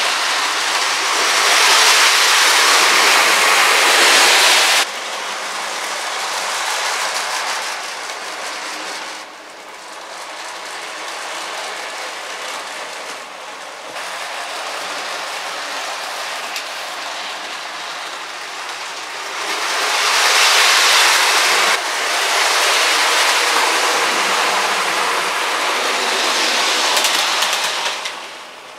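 Model railway locomotive, a GWR City class, running along the track hauling express coaches: a continuous rattling rush of motor and wheels on rail. It grows loud twice, near the start and about two-thirds through, and each time drops away suddenly.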